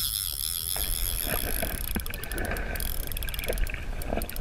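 Shallow water sloshing and splashing around wading legs, over a steady low rumble, with scattered small splashes and knocks.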